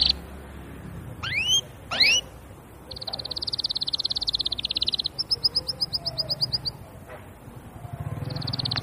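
Domestic canary singing: two quick rising whistles, then a long rapid trill, a run of fast repeated notes, and another short trill near the end.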